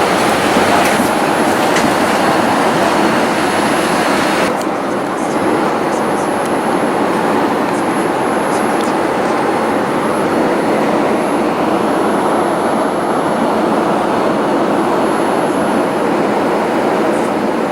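Steady cabin noise of a Boeing 787-8 airliner: jet engines and airflow making a loud, even rush. The higher hiss drops off abruptly about four and a half seconds in.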